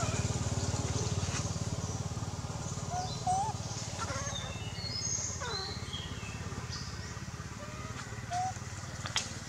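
A motor vehicle engine's low rumble, fading steadily as it moves off, with a few short chirping calls over it, most of them about three seconds in and near the end.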